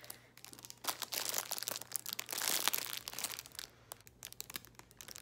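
Loose clear plastic wrap crinkling as a wrapped plastic case is handled and turned, a dense run of crackles that thins out about three and a half seconds in.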